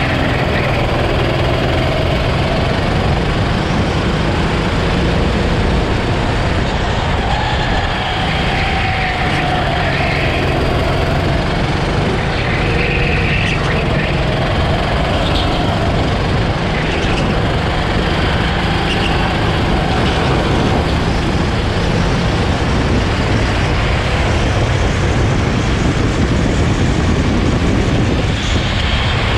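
Go-kart engine running hard under the onboard camera, its pitch rising on the straights and falling into the corners, over a constant rush of wind and tyre noise.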